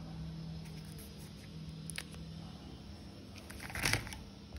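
Kinder Joy plastic egg capsules handled in a glass bowl: a single light click about two seconds in, then a cluster of knocks and rustles near the end, the loudest part. A low steady hum runs beneath.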